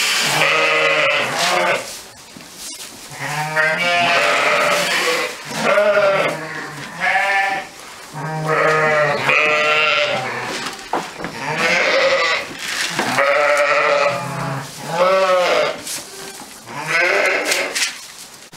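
Sheep bleating over and over: about ten quavering calls, each around a second long, some following close on one another.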